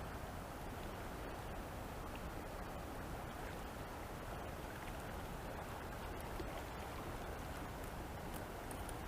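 Steady rushing of a fast mountain river, an even noise with no changes.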